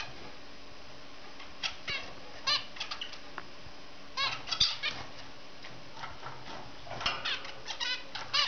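Zebra finches giving short calls, a few singly, then in quick clusters that come thickest near the end.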